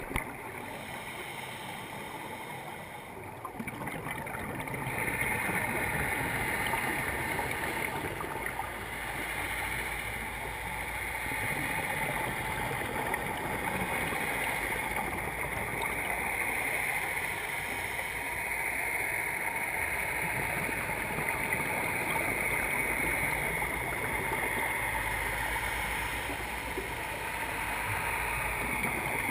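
A dive boat's engine and propeller heard underwater from overhead: a steady hum with a higher whine that grows louder about five seconds in and then holds.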